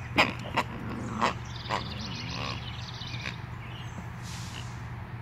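Puppy mouthing and carrying a latex pig toy: a few short squeaks and clicks in the first two seconds, then a rapid high trill for about a second and a half.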